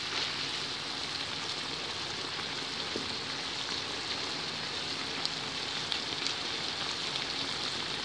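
Lamb liver adobo frying in its own sauce in a pan, a steady sizzling hiss, with a few faint clicks in the middle.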